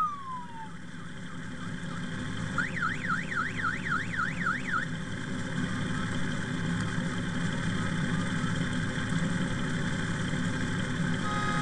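Honda Gold Wing motorcycles idling steadily in a line. About two and a half seconds in, a siren warbles rapidly up and down, about three to four sweeps a second, for about two seconds; near the end a steady electronic tone starts.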